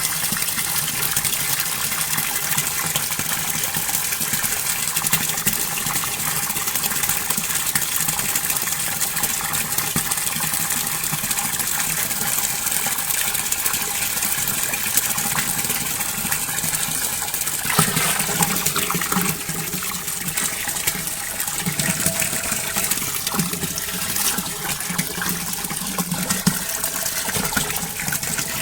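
Continuous running, rippling water, steady throughout with a brief louder splash-like moment about two-thirds of the way through.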